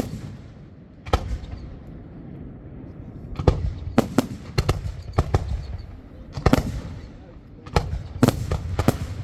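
Fireworks exploding in the sky: irregular sharp bangs, several coming in quick clusters of two or three, over a continuous low rumble.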